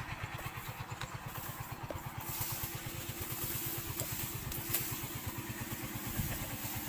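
A small engine running steadily with an even, low putter, and a few faint clicks.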